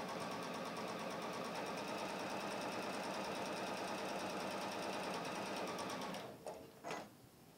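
Electric sewing machine stitching a straight seam at a steady speed, stopping about six seconds in, followed by a couple of short clicks.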